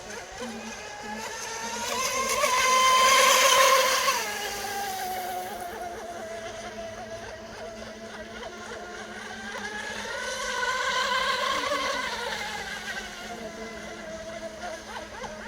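3D-printed RC raceboat's motor whining as it runs on the water, rising in pitch and loudness to a peak, then backing off abruptly about four seconds in. It swells and falls again a second time past the middle.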